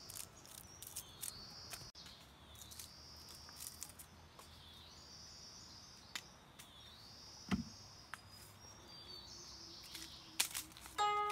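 Crisp snaps and crackles of fresh bamboo shoot husks being torn off by hand, with one louder snap about two-thirds of the way through. Repeating high-pitched chirping calls sound in the background.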